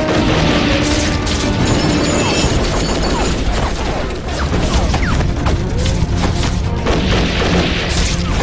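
Battle sound effects from a war drama: explosions and gunfire over a dense, continuous rumble, mixed with a dramatic music score.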